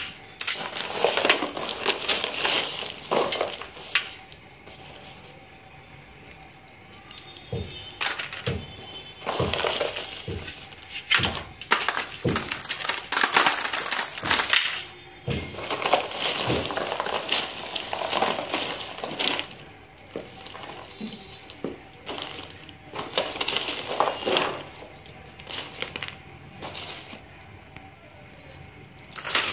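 Broken slate pencil sticks clattering and clinking as a hand stirs and drops them in a tray, in irregular bursts with a few short quiet pauses.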